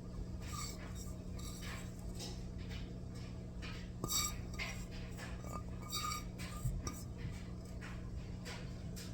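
Kitchen utensils and dishes clinking and tapping, with two louder metallic clinks that ring briefly, about four and six seconds in, over a steady low hum.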